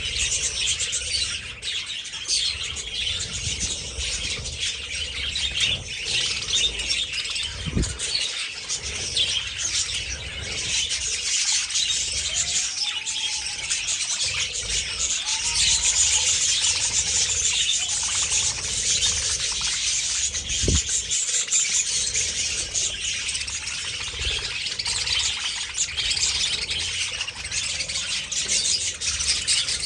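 A large colony of budgerigars chirping and chattering together without pause, many birds calling at once.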